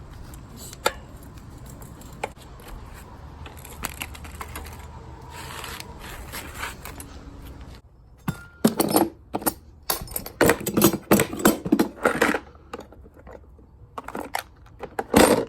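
Clicks and metallic rattling from hands working on a BMX wheel, sparse at first, then a busy run of clanks and rattles through the second half with a loud knock near the end.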